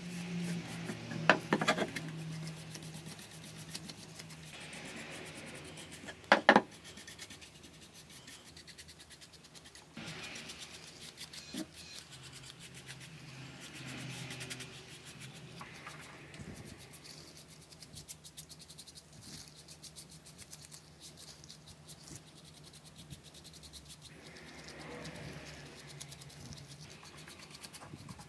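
Paintbrush stroking varnish onto wood: soft, repeated swishing and rubbing. Two sharp knocks stand out, one about a second in and one about six seconds in.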